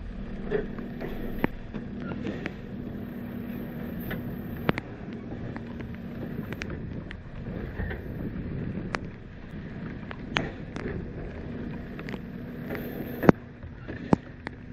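Automated side-loader garbage truck running at the curb while its hydraulic arm grabs and lifts a polycart. A steady low hum drops away about six seconds in. Sharp scattered ticks from rain and the cart run throughout, the loudest a little before the end.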